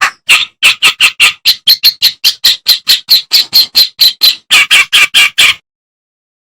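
Kerakbasi (reed warbler) singing a fast run of short, harsh, scratchy notes, about four or five a second. The run cuts off abruptly a little over five seconds in.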